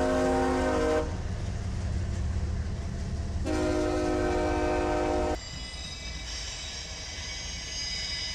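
Freight locomotive's multi-chime air horn sounding twice over the rumble of a passing train: a blast that ends about a second in, then after a pause of about two seconds a second blast lasting about two seconds. After that the sound drops to a quieter passing train with thin high steady tones above it.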